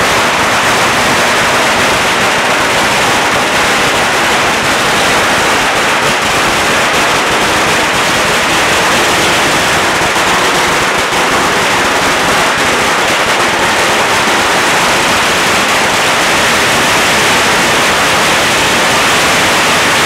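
A 100,000-cracker string of firecrackers going off without a break, the rapid bangs running together into one loud, continuous crackle.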